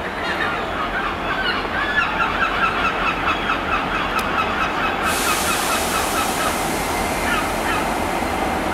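Class 47 diesel locomotive drawing a train of Mark 1 coaches slowly into a station platform over a steady low rumble. For the first six seconds it is overlaid by a rapid run of short, high, honk-like squeaks, about five a second, and from about five seconds in a steady hiss joins.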